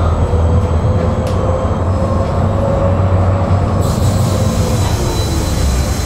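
Tram running on its rails, heard from inside the car: a steady low rumble from the wheels and running gear with a faint whine. About four seconds in, a high squealing hiss from the running gear joins in.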